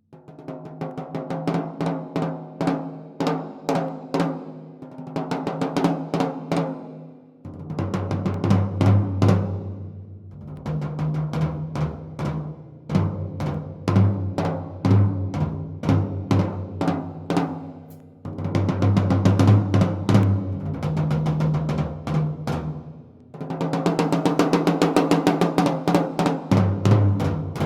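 Sakae Trilogy drum kit, 3-ply maple/poplar/maple shells with coated Ambassador heads, played in fast rolls and fills of rapid stick strokes. The strokes move around the toms in runs of a few seconds each, switching between higher- and lower-pitched drums, with snare and bass drum mixed in.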